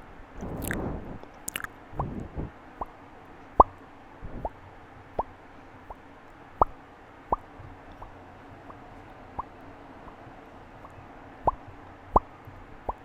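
Close-miked mouth pops from a person's lips and mouth, lips coated with lip balm: about a dozen short, wet pops at irregular gaps, each with a quick drop in pitch. A breathy rush comes about a second in.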